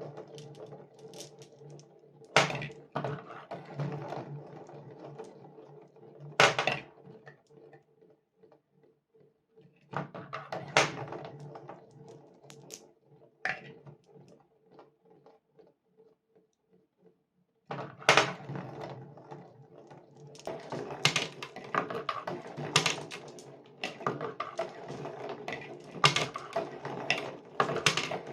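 Glass marbles rolling along a cardboard marble run: a steady rumbling roll broken by sharp clacks as marbles drop and strike the track. The sound dies away for a few seconds past the middle, then comes back busier, with many clacks close together.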